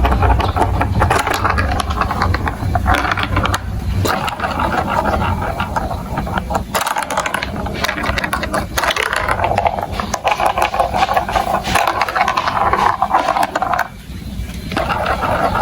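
Marbles rolling and clattering down plastic building-block marble-run track: a dense, continuous rattle of small clicks and scraping, briefly dropping off near the end.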